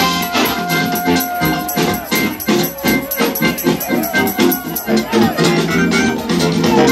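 House music played loud over a party sound system, with a steady dance beat. For a few seconds in the middle the bass and keys drop away, leaving mostly the drums, then they come back in.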